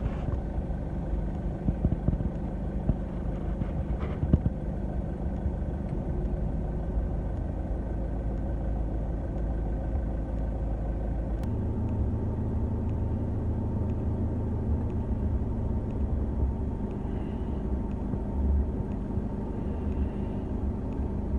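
Mitsubishi L200 pickup's engine running steadily off-road, with a few sharp knocks in the first few seconds. Its tone changes about halfway through.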